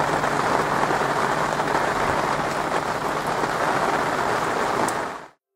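Torrential rain pouring down onto the water and a moored yacht's deck, a steady dense hiss that stops suddenly near the end.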